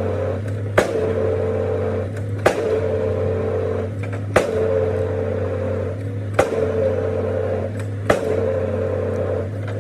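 Excavator-mounted pile hammer striking a concrete pile five times, about one blow every two seconds, each a sharp crack, over the steady hum of the running excavator engine.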